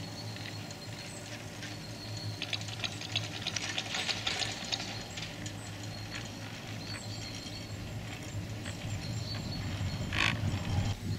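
Chairlift running: a steady low hum from the moving cable with scattered light clicks and rattles. A louder clatter comes about ten seconds in as the chair rolls past a lift tower.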